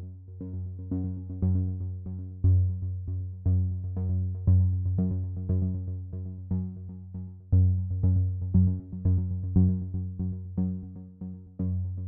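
Background music on a synthesizer: a melody of notes struck about twice a second, each fading away, over a steady low bass tone.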